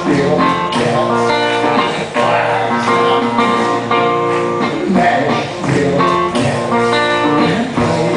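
Live guitar playing a picked instrumental break, single notes and strummed chords, with no singing.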